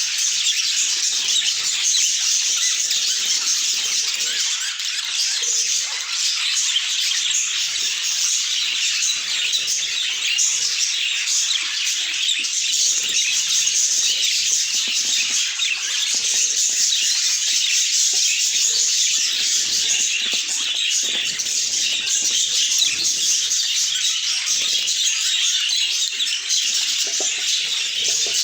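Budgies chattering and chirping, a dense unbroken stream of high-pitched calls.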